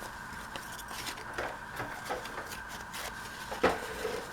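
Paper rustling and light taps as paper pieces are handled and tucked into a journal, with one sharper tap about three and a half seconds in.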